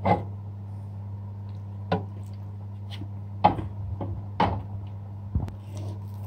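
Hands kneading a plain-flour naan dough in a bowl: a string of irregular short knocks and thumps, about seven in all, as the dough is pressed and the bowl is handled, over a steady low hum.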